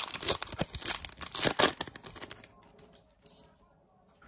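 A Yu-Gi-Oh trading card booster pack's foil wrapper being torn open and crinkled, a dense crackling that lasts about two seconds and then dies away.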